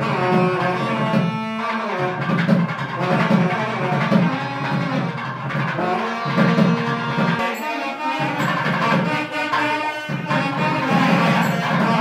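Music: drums under a melody of held notes.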